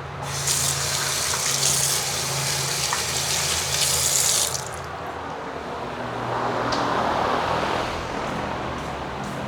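Hissing spray while carburetor parts are being cleaned, a long blast of about four seconds followed by a shorter, softer one, over a steady low hum.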